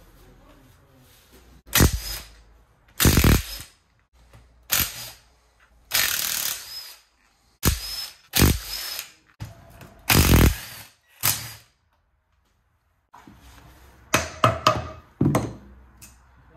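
A hand-held power tool run in about ten short bursts, each under a second, with pauses between.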